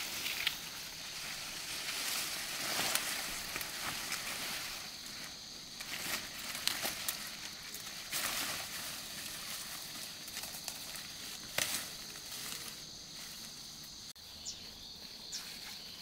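Irregular rustling with scattered light clicks and knocks, over a faint steady high hiss.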